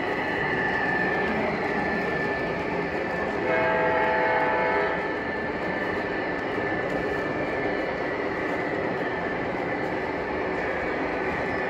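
O-gauge model train running on a layout, its onboard sound system blowing the diesel horn once, for just over a second, a few seconds in, over a steady running rumble.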